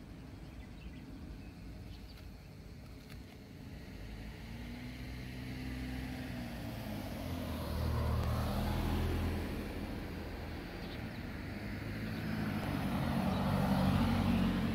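Road traffic: passing vehicles' engine hum and tyre noise, swelling as one goes by about eight seconds in and another near the end.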